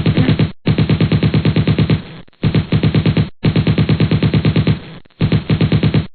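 Machine gun sound effect: five bursts of rapid automatic fire, each lasting about one to one and a half seconds, with short breaks between them.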